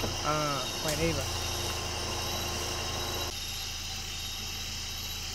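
Crickets and other night insects trilling steadily over the low, steady hum of an idling vehicle engine.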